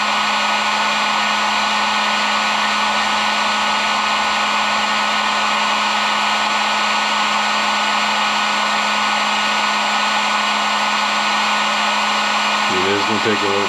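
Heat gun running steadily, a constant rush of blown air over a low hum, held on a solder-seal heat-shrink connector to melt its solder and glue.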